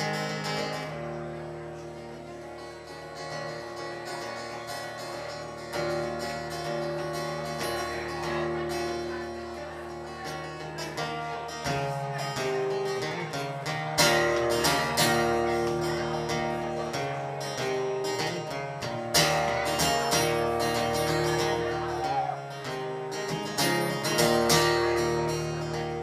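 Folk band playing live: strummed acoustic guitar under a tune of long held notes, the playing growing fuller and louder about halfway through, with a few sharp accented strums.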